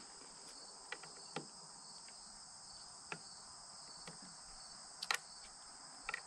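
Steady high-pitched chirring of crickets, with a few faint short clicks and taps scattered through, the sharpest pair about five seconds in.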